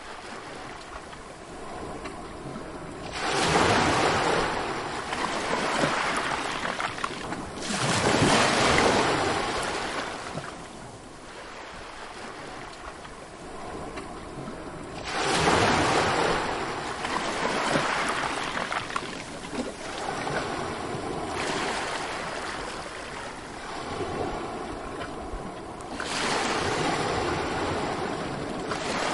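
Ocean surf: waves breaking and washing in, with four big surges that rise quickly and then fade slowly, and a steady wash of water between them.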